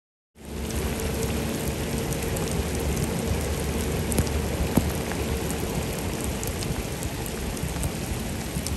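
Heavy rain pouring onto a flooded street: a dense, steady hiss with the patter of individual drops, starting abruptly a moment in. A faint steady hum runs underneath.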